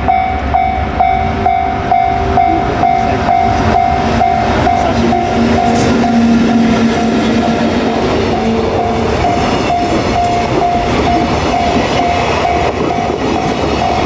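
JR Freight EF81 electric locomotive hauling a container train past a level crossing, the wagons rumbling and clattering over the rail joints. A Japanese level-crossing bell rings over it the whole time, a high ding repeating about twice a second.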